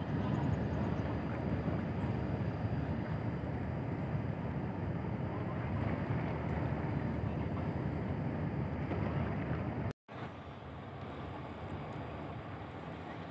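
Steady low rumbling noise of wind buffeting the microphone over open water. It breaks off for an instant about ten seconds in, then goes on a little quieter.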